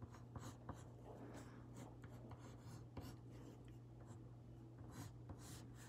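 Faint scratching of a pencil on paper as short straight lines are drawn, stroke after stroke, over a low steady hum.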